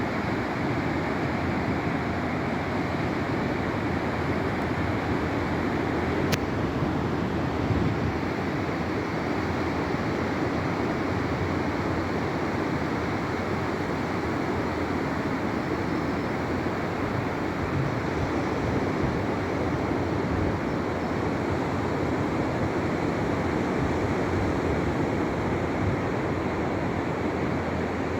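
Atlantic surf at the shore: a steady, continuous wash of breaking waves. A single sharp click about six seconds in.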